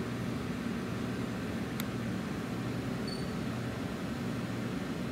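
Steady low mechanical hum, with a faint tick about two seconds in and a short high chirp a little after three seconds.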